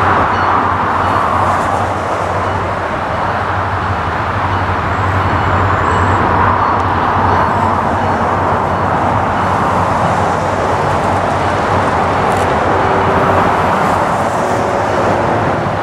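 Two EMD SD40-3 diesel-electric locomotives, each with a turbocharged 16-cylinder EMD 645 engine, running as they approach slowly on the main line. The sound is a loud, steady engine rumble with no change in pitch.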